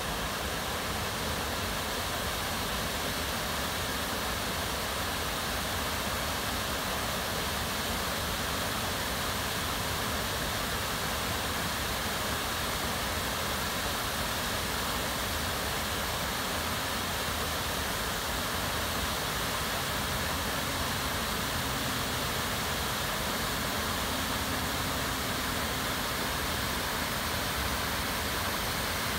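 Muddy flash-flood water rushing across a desert riverbed and pouring over a bank ledge into the channel below: a steady, even rush of water.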